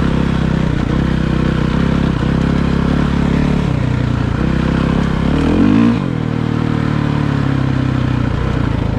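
Dirt bike engine running, then revving up sharply about five and a half seconds in to its loudest point before dropping back to a lower steady run.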